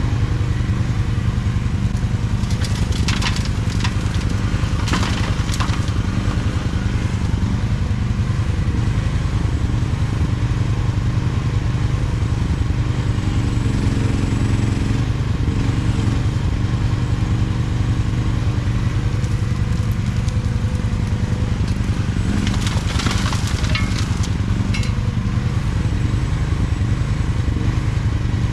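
Mini excavator's diesel engine running steadily under work. Twice, a few seconds in and again in the last third, there is a stretch of gravel crunching and scraping in the bucket.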